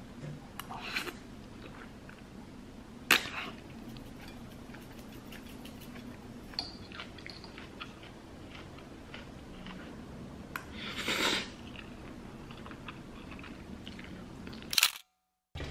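Eating sounds: a metal fork clicking on a ceramic plate now and then while pasta is twirled up, with soft chewing, over a low steady room hum. The sharpest click comes about three seconds in, and there is a short scrape about eleven seconds in.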